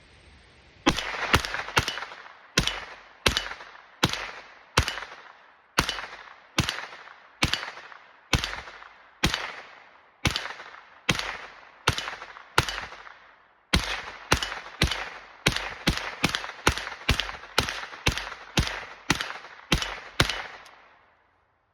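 9mm AR-15 carbine firing about thirty rounds shot by shot, roughly one every two-thirds of a second and then faster, about two a second, in the second half. Each sharp report is followed by a short ringing tail. The firing stops shortly before the end.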